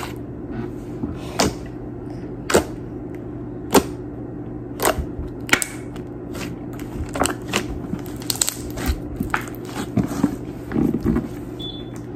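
Pink slime being pressed and pulled by hand on a tabletop, giving short sharp pops and clicks as air pockets burst. They come singly about a second apart at first, then in quicker clusters in the second half, over a steady low hum.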